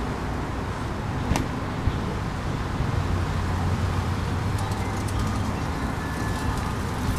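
Steady low rumble of road traffic, with one sharp click about a second and a half in.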